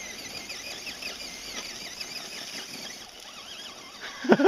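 High whine of an RC crawler truck's electric motor, its pitch wavering up and down as the throttle is worked.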